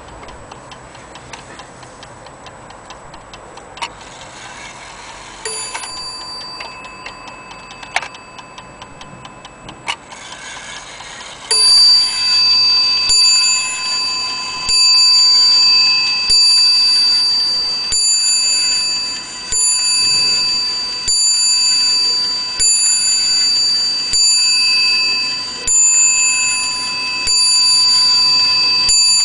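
Zaanse weight-driven wall clock ticking, with a few separate clicks from the movement, then about eleven seconds in its bell begins striking: about twelve ringing strikes, roughly a second and a half apart, each ringing on until the next.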